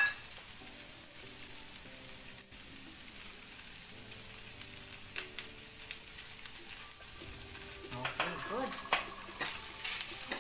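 Shredded chicken frying in a stainless-steel wok, a steady sizzle, with a few clicks and scrapes of a metal spoon stirring it against the pan in the second half.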